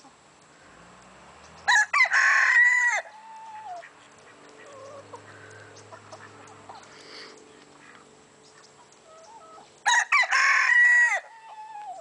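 A rooster crowing twice, about eight seconds apart; each crow is loud and lasts just over a second, ending on a falling note.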